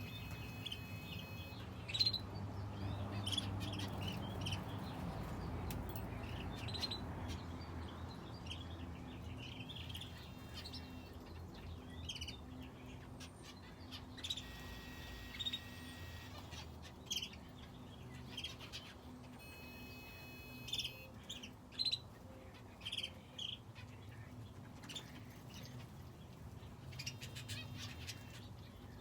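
Aviary finches and a canary chirping: short calls scattered throughout, with a few brief trilled phrases, over a low steady hum.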